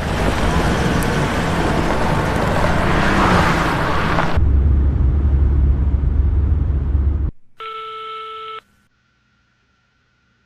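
A loud rushing noise, then a heavy deep rumble that cuts off suddenly about seven seconds in, followed by a telephone ringing in a short one-second ring.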